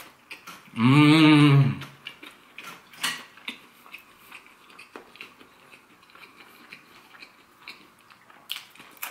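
A man lets out one loud closed-mouth "mmm" of enjoyment about a second in, its pitch rising then falling, then chews a mouthful of slider burger with many small wet clicks and smacks.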